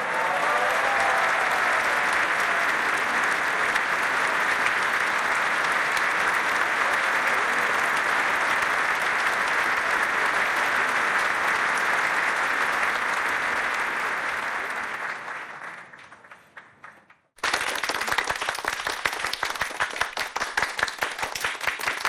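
Dense, steady applause from a large crowd that fades away over a few seconds near the end. After a brief pause a second round of clapping starts abruptly, with sharper, more separate claps.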